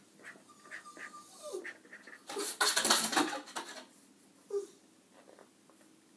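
Felt-tip marker scratching on paper over a clipboard: a loud burst of rapid back-and-forth strokes lasting about a second, near the middle, with fainter single strokes and taps around it.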